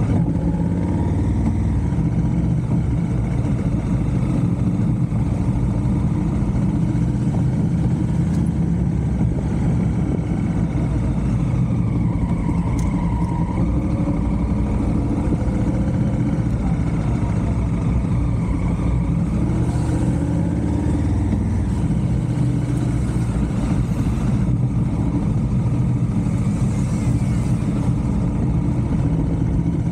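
Motorcycle engine running while riding, its pitch rising and falling gently.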